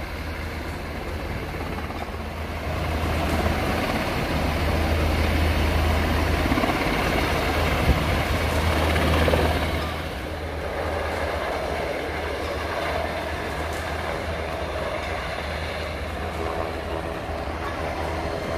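Sikorsky Seahawk-type naval helicopter flying low overhead with a steady rotor and turbine drone. It grows louder a few seconds in and eases off again about halfway through.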